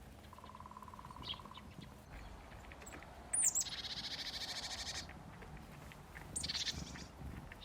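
Small birds calling. About half a second in comes a low buzzy trill. The loudest sound is a sharp falling call about three and a half seconds in, which runs straight into a high buzzy trill of about a second and a half. A short high call follows near seven seconds.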